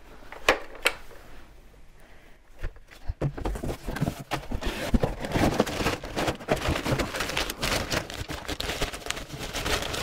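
Paper wrapping and cardboard packaging rustling and crinkling as they are pulled out of a box, with many small clicks and knocks. Two sharp clicks come about half a second and a second in; the rustling grows dense from about three seconds on.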